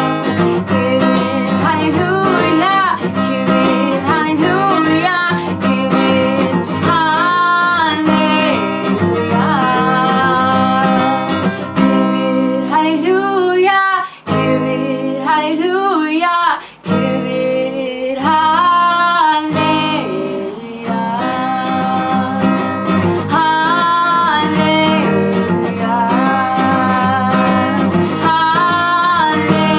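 A woman singing in Amharic to her own strummed acoustic guitar, the guitar capoed high on the neck. The music breaks off briefly twice around the middle.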